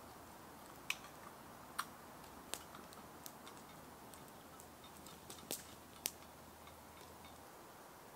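Wood campfire crackling faintly: a handful of sharp, irregularly spaced pops over a soft steady hiss.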